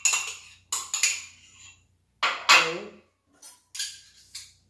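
A spoon clinking and scraping against a cup and a bowl, in a string of separate knocks and scrapes, some with a brief ringing tone, as cream is spooned into beaten egg.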